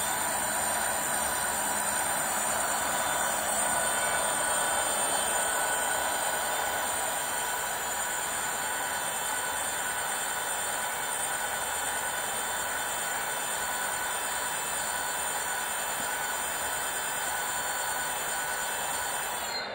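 Brushless direct-drive hub motor (60V 2000W) spinning an unloaded 26-inch rear wheel at speed: a steady electric whine with several high tones over a rushing whir. Power cuts off right at the end.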